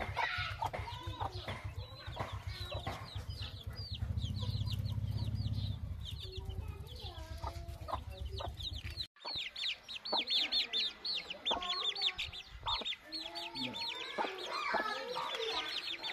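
Chicks peeping, many quick high cheeps that fall in pitch, with a hen clucking lower among them. A low rumble runs under the first half and stops at a cut about nine seconds in.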